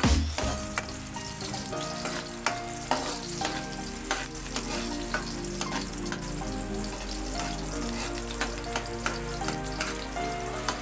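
Sliced onion and garlic sizzling in hot oil in a wok while a metal ladle stirs them, scraping and clicking against the pan again and again.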